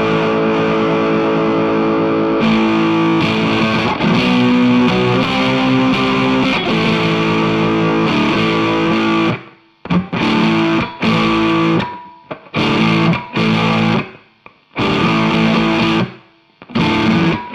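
Electric guitar (a Godin Freeway superstrat) played through distortion: about nine seconds of sustained distorted chords, then a run of short bursts, each cut off sharply, as the sound is chopped in and out with the guitar's volume knob.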